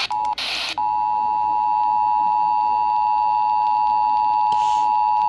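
Emergency Alert System broadcast: the last screeching bursts of the digital SAME header, then the steady EAS attention-signal alarm tone, which starts under a second in and holds unbroken.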